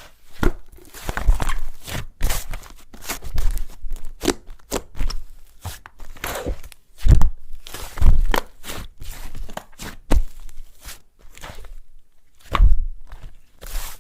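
A large batch of mixed slime being squished, stretched and folded by hand, giving irregular wet clicks and pops as air pockets burst, with a few louder pops along the way.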